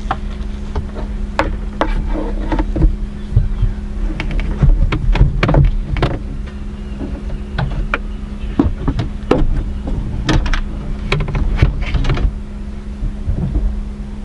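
Steady low hum of a stationary car, heard from inside the cabin, under a scattering of knocks, clicks and clunks, busiest in the middle.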